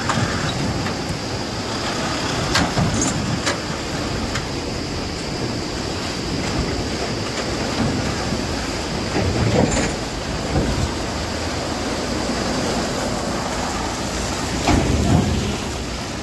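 Heavy diesel trucks, among them a BharatBenz box truck, driving slowly past through muddy standing water, engines running and tyres splashing, with a steady low rumble. Several sharp clunks ring out as the trucks jolt over the broken road, the loudest near the end.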